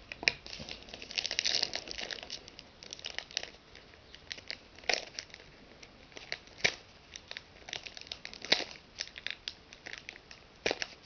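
Foil trading-card pack wrapper crinkling and tearing as hands work it open, with many irregular sharp crackles; the pack is hard to open.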